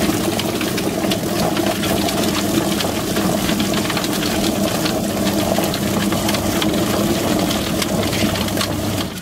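Quail plucking machine running: its motor spins the rubber-fingered drum with a steady hum, while water sprays in from a hose and the quail tumble against the plucking fingers with a rapid, irregular clatter.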